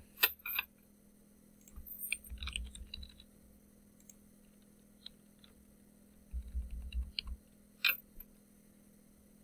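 Typing on a computer keyboard: clusters of keystrokes in short bursts with pauses between, as text is entered into form fields.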